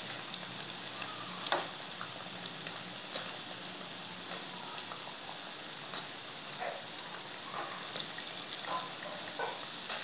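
Urad dal fritters deep-frying in hot oil in a kadai, sizzling steadily with scattered small pops. A flat spatula turning them gives occasional clicks and scrapes against the pan, the sharpest knock about a second and a half in. The fritters are fried golden brown and nearly done.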